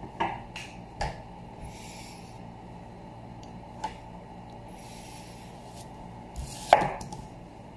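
Kitchen knife slicing through a whole beetroot on a cutting board, with a few short knocks as the blade meets the board, the loudest near the end.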